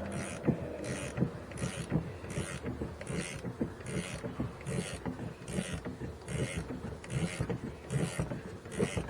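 Hand ratchet wrench with an 18 mm socket worked back and forth on a nut, a burst of pawl clicking on each swing, about two swings a second.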